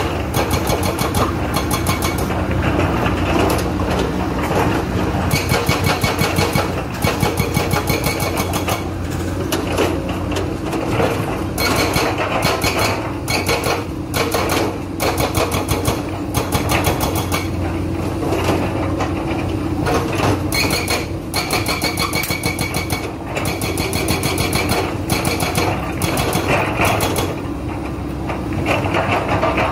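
Hydraulic breaker on an excavator hammering in rapid, even blows, in runs broken by short pauses, over the steady running of the machine's diesel engine.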